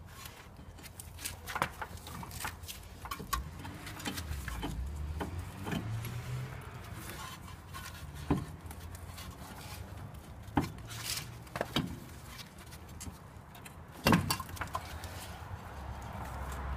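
Scattered metal clinks and knocks, the loudest about 14 seconds in, as a Daewoo Matiz front hub and knuckle assembly is worked onto the drive shaft and lower ball joint.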